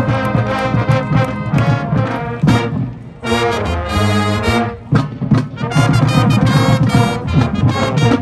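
Marching band playing, its brass section leading with trombones and trumpets, with a long held chord about three to five seconds in.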